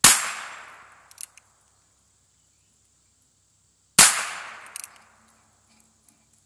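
Two gunshots from a 1957 Colt Single Action Frontier Scout .22 LR revolver, about four seconds apart, each a sharp crack dying away over about a second. Each is followed within a second by a faint, brief click.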